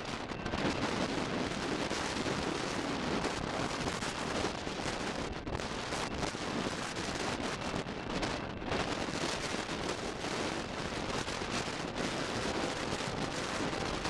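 Strong gusty wind buffeting the microphone, a constant rushing roar that swells and dips.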